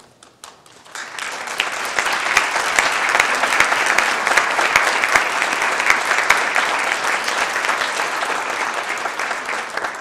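Audience applauding: a few scattered claps that swell into steady, full applause within the first two seconds.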